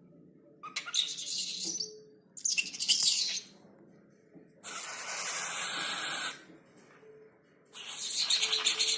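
Cockatiel making four raspy, hissing calls, each about a second or more long; the third is a longer, even hiss.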